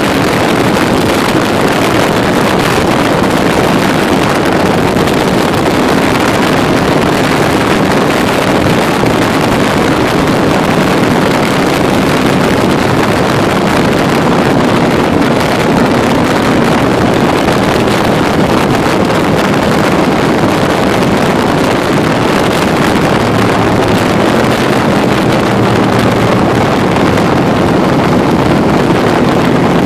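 Can-Am Spyder three-wheeled motorcycle engine running at a steady cruise, with wind rushing over the microphone.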